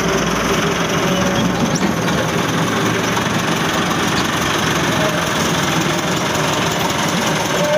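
Large farm tractor's diesel engine running steadily.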